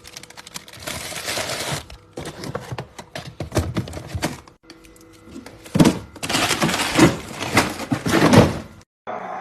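Rapid clattering knocks and thuds in two long runs with a short lull between, the second run louder.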